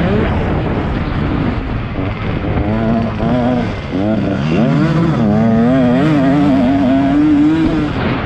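Motocross dirt bike engine running hard under throttle. About three seconds in its pitch becomes clearer, wobbling up and down and climbing steadily until near the end.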